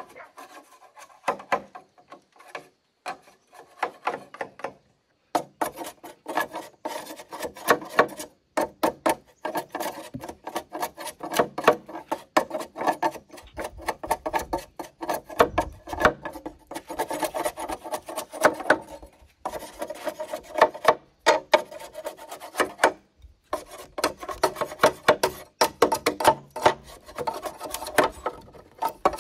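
Rapid rasping strokes of a hand tool working wood, in runs broken by brief pauses.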